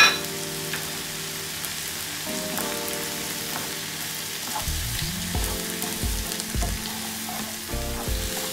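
Diced onion and tomato sizzling gently in a frying pan, stirred with a wooden spatula from about halfway through, under soft background music of long held notes.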